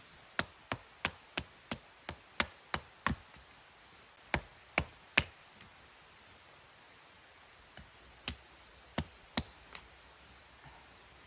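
Wood being chopped, most likely kindling split for a campfire: a run of sharp knocks, quick at first at about three a second, then in shorter groups with pauses between.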